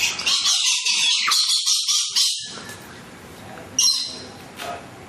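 A bird squawking: a rapid run of loud, harsh calls for about two seconds, then a single sharp call just before four seconds in.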